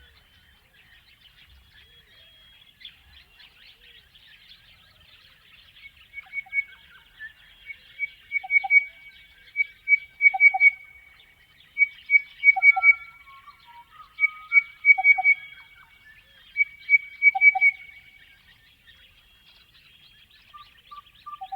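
Crested bellbird singing: repeated phrases of rich ringing notes, each ending in a deeper cow-bell-like note, starting about six seconds in and growing louder before stopping near the end. A faint high chatter continues underneath.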